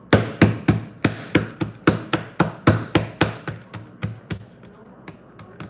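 Hands patting and slapping flour tortilla dough, a quick steady run of sharp pats, about three or four a second, that stops about four seconds in.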